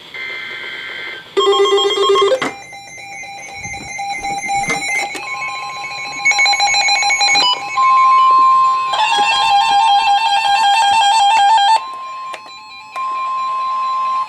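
Emergency alert tones. A short burst of warbling header data is followed by a jumble of overlapping electronic beeps and pulsing chimes, with the steady 1050 Hz weather radio warning alarm tone held for stretches in the second half. These tones signal the severe thunderstorm warning that follows.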